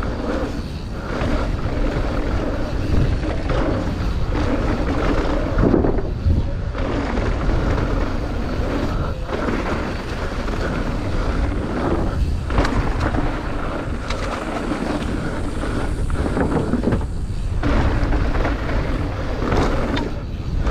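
Wind rushing over the microphone of a fast-ridden mountain bike, with its tyres rolling over a dirt trail and the frame and drivetrain of the Deviate Highlander trail bike rattling. The noise dips briefly several times along the way.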